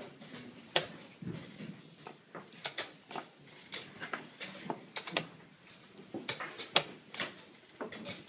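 Chess pieces set down on the board and chess clock buttons pressed in a fast blitz game. It comes through as a string of sharp, irregular clicks and knocks, about a dozen of them.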